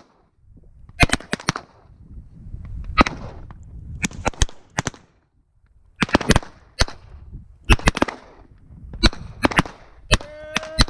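Revolver shots fired in loose clusters of two or three, with a short pause about five seconds in. A held pitched sound starts near the end.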